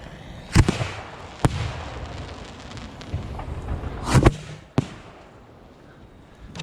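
Fireworks going off: a loud bang about half a second in, another about a second later, a quick cluster of bangs around four seconds and a sharp crack just after, with crackle and rumble between them.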